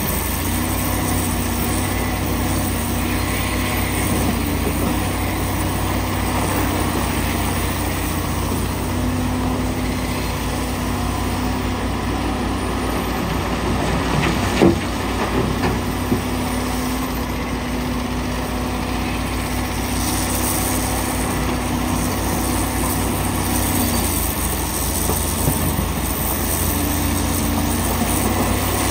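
Komatsu PC450LC excavator's diesel engine running steadily under hydraulic load, with a heavy dump truck idling alongside; the engine note shifts as the machine swings and works. About halfway through, a bucketload of rock drops into the steel truck bed with a sharp crash, then a smaller knock.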